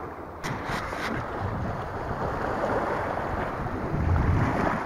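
Small sea waves washing over rocks and pebbles at the water's edge, with wind on the microphone. A few sharp clicks about half a second in.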